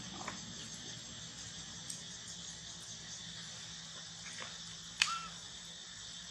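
Steady high insect chorus with a few faint ticks. About five seconds in there is one sharp click, followed at once by a short high squeak.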